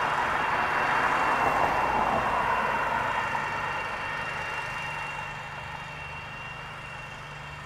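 Spider ILD02 remote-controlled mower's Kawasaki FS691 gasoline engine running steadily under cutting load, with a low hum and a thin high whine. A broad rush is loudest in the first three seconds, and the whole sound fades as the mower drives away.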